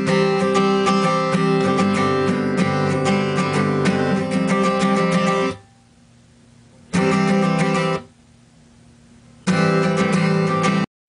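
Background music of a strummed acoustic guitar. It drops out suddenly twice, for about a second and a half each time, and cuts off just before the end.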